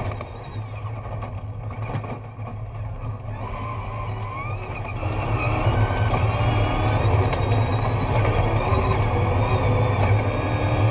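BAIC rally raid car's engine running hard, heard from inside the cabin; the revs climb about four seconds in and the sound gets louder from about five seconds on.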